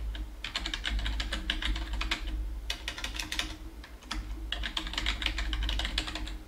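Typing on a computer keyboard: quick runs of keystrokes in several bursts with short pauses between them, over a low steady hum.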